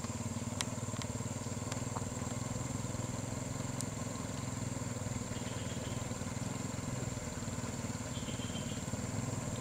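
A motorcycle engine and a car engine running steadily at low speed as both crawl through thick mud, with a few faint clicks in the first two seconds.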